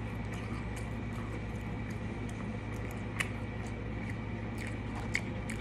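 A person chewing a mouthful of burger, with wet mouth clicks and smacks and two sharper smacks in the second half, over a steady low hum.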